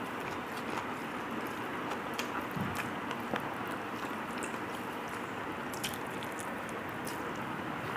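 A person eating rice by hand: chewing, with the wet squish of fingers mixing rice and mashed leaf paste on a steel plate, heard as scattered small clicks over a steady background hiss.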